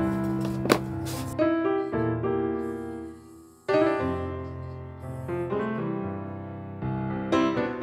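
Background piano music playing slow chords, with a brief drop in level a little past three seconds before the next chord comes in sharply.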